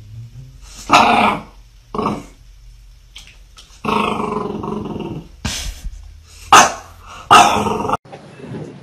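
A French bulldog growling and barking in a series of short, loud outbursts, with one longer growl about four seconds in.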